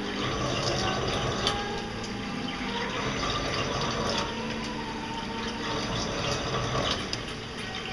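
Sunmill JHV-550 vertical machining centre drilling at a slow 200 rpm spindle speed, with coolant running and splashing steadily over the cut. A low machine hum and scattered light ticks run under the flow.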